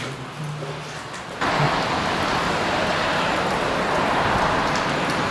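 Steady hiss of heavy rain falling on wet concrete and puddles, starting suddenly about a second and a half in. Before it there is a faint low hum.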